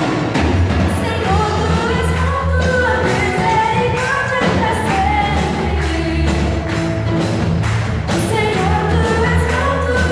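A church worship band playing a song, with singing over a steady drum beat.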